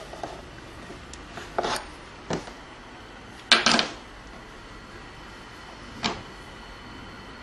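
A few separate light knocks and clinks of utensils and dough being handled on a kitchen countertop, the loudest a quick double knock about three and a half seconds in.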